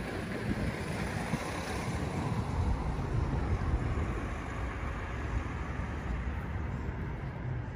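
Wind buffeting the microphone: a steady, uneven low rumble with a soft hiss above it.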